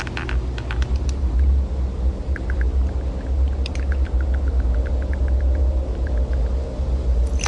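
A steady, deep low rumble, with a run of faint, quick ticks about midway.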